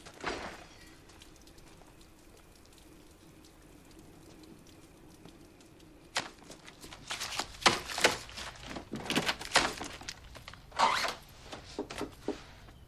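A run of thuds, knocks and rustling as things are knocked over and tossed about in a room, starting about halfway through and loudest near the end, after a single short knock right at the start.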